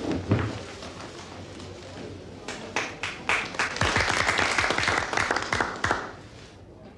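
A small audience applauding by hand, a dense run of claps that starts about two and a half seconds in, swells, and stops shortly before the end.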